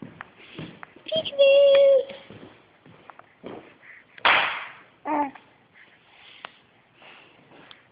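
A high, steady squeal about a second in, then a single short, sharp sneeze about four seconds in, followed by a brief small voiced sound.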